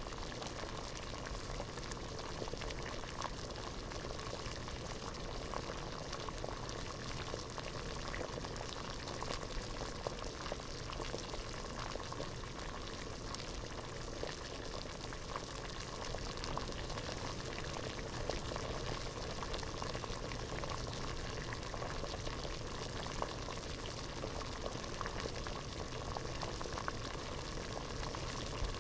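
Water boiling at a steady rolling boil in a pot, a dense, continuous bubbling with many small pops.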